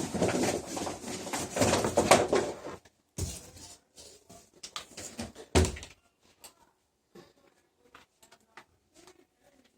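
Loud clattering and knocking of things being handled, two heavy thuds about three and five and a half seconds in, then only faint scattered clicks.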